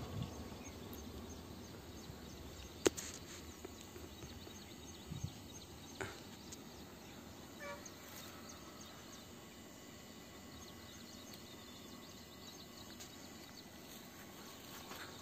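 Faint outdoor background noise, with a sharp click about three seconds in and a softer one about six seconds in.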